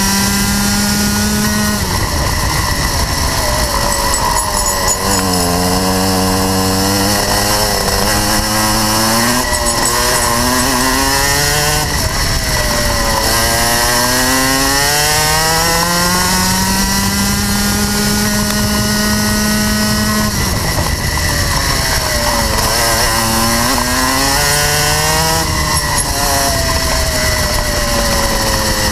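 Rotax Max 125 cc two-stroke kart engine heard from on board, loud, its revs climbing on the straights and dropping sharply under braking into the corners, over and over.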